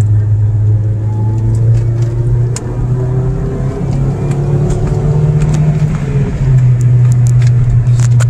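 Ford Focus SVT's 2.0-litre four-cylinder engine pulling the car along at around 3,000 to 4,000 rpm, heard from inside the cabin with road noise. The engine note climbs, then drops a little about six seconds in.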